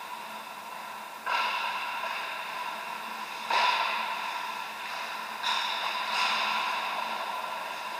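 Ice hockey play heard from across an indoor rink: a steady hiss with four sudden scraping bursts that each fade over about a second, from skate blades cutting into the ice.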